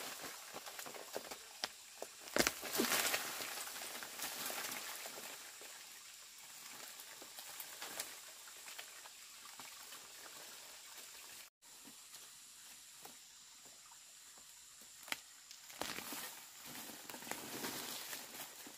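Dry leaves, stems and soil rustling and crackling as a clump of plants is pulled out of the ground by hand and its earth-caked roots are handled, with loose soil pattering down. A louder crunching rustle about two to three seconds in, where the clump comes free, is the loudest moment.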